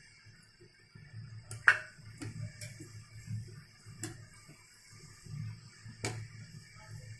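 Samosas deep-frying in hot oil in a metal kadai with a steady sizzle, while a metal slotted spoon turns them and clinks against the pan several times, the sharpest clink about a second and a half in.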